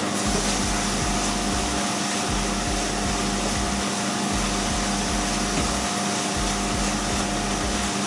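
A small motor running steadily: an even whirring hiss with a constant low hum.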